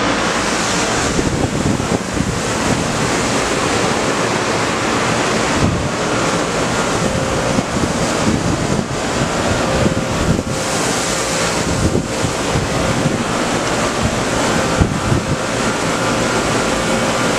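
Small quadcopter drone's propellers running as it hovers and flies close by: a steady whine under a heavy rush of rotor wash and wind on the microphone.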